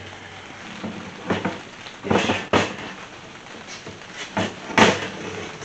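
Heavy NP231 transfer case being turned over and set down on a steel workbench: a handful of metal clunks and knocks with some scraping between them, the loudest near the end.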